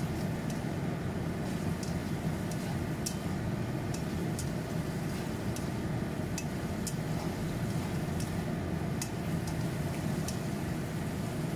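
Okra being stir-fried in a nonstick wok: a spatula taps and scrapes against the pan in scattered light clicks, about one a second, over a steady low hum.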